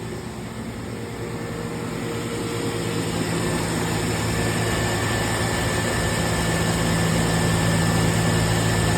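Air compressor running, pumping its tank up to pressure after being switched back on: a steady motor hum that grows gradually louder.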